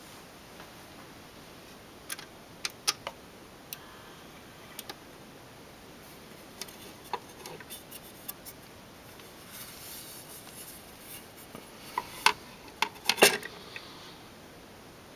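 Scattered clicks and knocks of a shellac 78 rpm record and turntable being handled: the tonearm lifted to its rest and the disc taken off the platter, turned over and set back down. The loudest knocks come in a quick cluster about twelve to thirteen seconds in.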